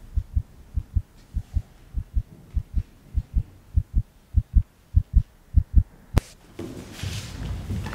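Heartbeat sound effect: paired low thumps repeating a little under twice a second. About six seconds in a sharp click cuts it off, and a rushing noise swells up.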